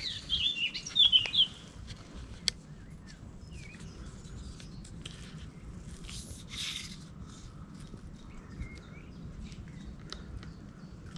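Small birds chirping and singing in quick, twisting phrases, loudest in the first second and a half, with a few fainter chirps later, over a quiet outdoor background. A brief rustle comes about six and a half seconds in.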